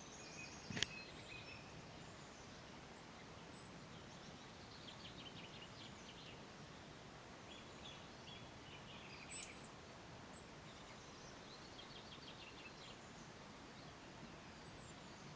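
Faint small songbirds chirping and calling at intervals over a quiet background hiss, with a sharp click about a second in and a brief louder high call about nine seconds in.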